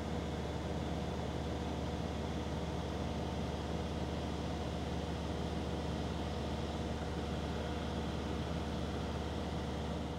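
Small private plane's engine and propeller droning steadily, heard from inside the cabin.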